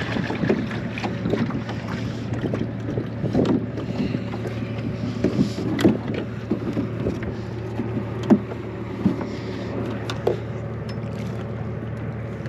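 Small skiff's outboard motor idling with a steady low hum, with scattered knocks and bumps on the hull.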